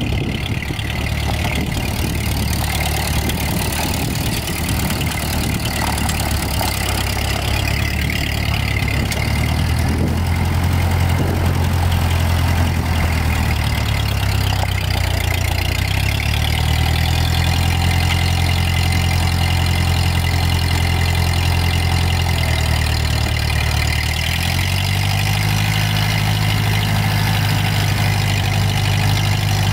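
1948 Ford 8N tractor's four-cylinder flathead petrol engine running steadily. Its pitch shifts a few times and is highest in the last few seconds.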